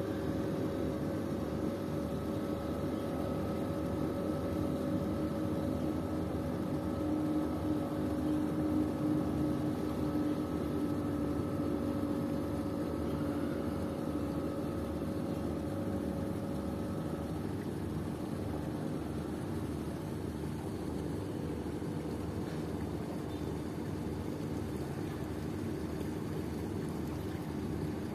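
A small motorboat's engine drones steadily across the harbour water. Its tone fades out about two-thirds of the way through, leaving a low rumble.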